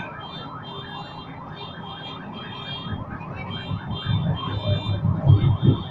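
An electronic siren or alarm yelping rapidly, about five or six short rising whoops a second, steady throughout. Low thuds build up in the second half.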